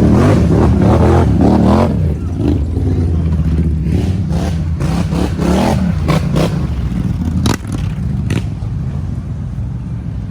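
ATV engine revving, its pitch rising and falling, loudest for the first two seconds and then running lower. Two sharp knocks come near the end.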